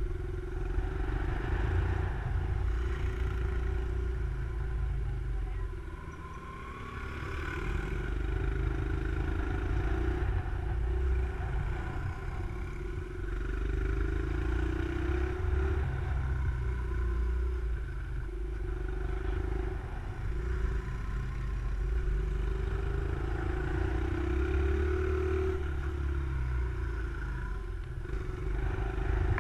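A small motorcycle's engine under way, its note climbing and dropping several times as the throttle is opened and closed. A steady low rumble of wind buffets the helmet-mounted microphone.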